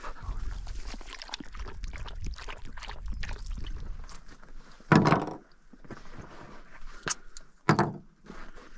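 Low rumbling wind on the microphone with light rustling, then sudden clunks about five seconds in and twice more near the end.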